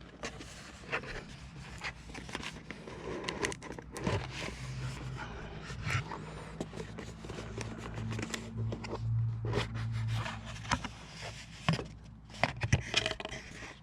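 Irregular scraping, rustling and clicking of a phone's packaging as the replacement iPhone 12 is worked out of its box.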